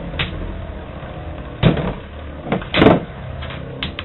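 Two Lightning L-Drago 100HF Beyblade tops spinning and clashing, with about five sharp metal clacks at uneven intervals.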